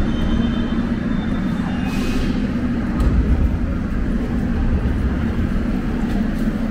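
Moscow Metro train running through a tunnel, heard inside the carriage: a steady loud rumble of wheels on rails with a constant motor hum, a short hiss about two seconds in.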